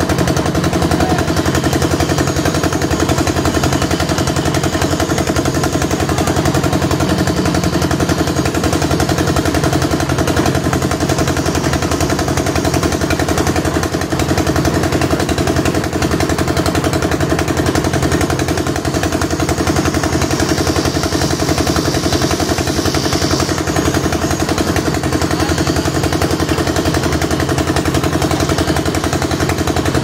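Engine of a concrete mixer running steadily, with a rapid, even chugging and a constant hum.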